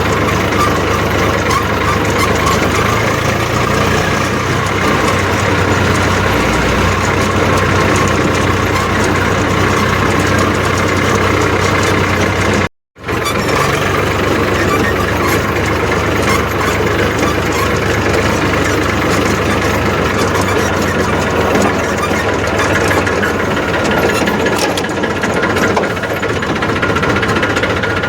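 Eicher 380 tractor's diesel engine running as the tractor is driven, a steady, dense engine drone with a knocking clatter. The sound drops out completely for a moment about thirteen seconds in.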